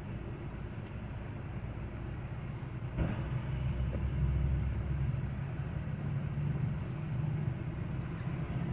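A vehicle engine running with a steady low rumble, and a single sharp knock about three seconds in.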